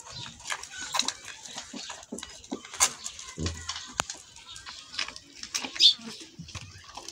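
A calf suckling directly from a goat's teat: irregular wet sucking and smacking clicks, with the sharpest ones about three seconds in and again near six seconds.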